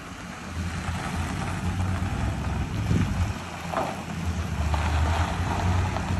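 Box ambulance's engine running at low speed as the vehicle manoeuvres slowly, with wind rushing over the microphone.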